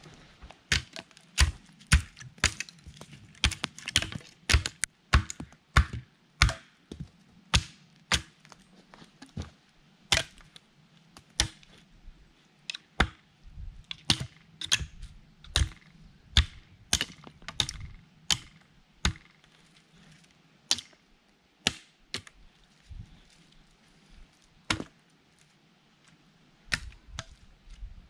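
Hatchet blade striking a log, chopping firewood: a long run of sharp, irregular chops, one or two a second, coming thickest in the first half and spacing out later.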